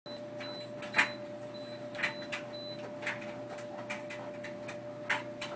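A front-loading clothes dryer running with a steady hum and irregular knocks. Its control panel gives short high beeps several times in the first three seconds as buttons are pressed with the controls locked.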